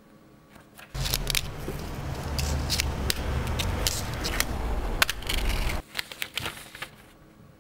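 Fingerboard clacking and scraping on concrete: a run of sharp clicks and scrapes over a low rumble. The sound starts suddenly about a second in and cuts off abruptly near six seconds.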